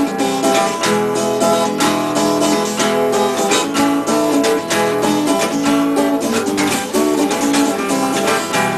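Acoustic guitar played in quick, even plucked and strummed notes, an instrumental passage.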